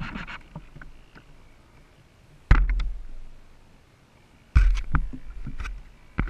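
Two hollow thumps about two seconds apart as the RC boat's hull knocks against the side of a larger boat, with water lapping faintly between them.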